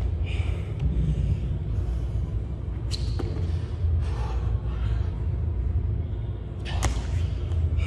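Burpee landings on a gym floor: two sharp thuds about four seconds apart, over the steady low hum of a large gym hall.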